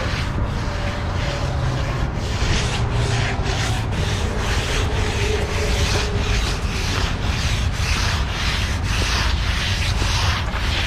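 A hand tool rubbing and scraping over fresh concrete in quick repeated strokes, about two to three a second: finishing the surface of a poured concrete slab. A low steady engine rumble runs underneath.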